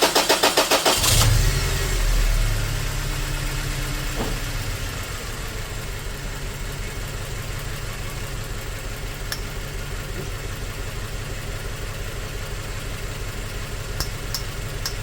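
2004 Toyota Tacoma four-cylinder engine cranking on the starter for about a second, catching, and settling into a steady idle. It idles with a dead miss on cylinder 1.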